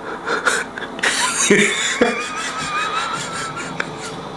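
A man laughing: a high, wavering laugh held for about two seconds, with a few short sharp breaths.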